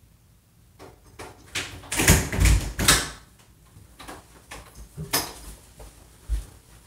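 A run of knocks and thuds, the loudest cluster about two to three seconds in, followed by scattered lighter clicks and taps, like a door and other household handling.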